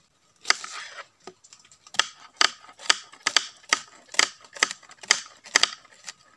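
Kitchen knife slicing a red onion on a wooden cutting board: sharp knocks of the blade striking the board, about two a second, starting about two seconds in.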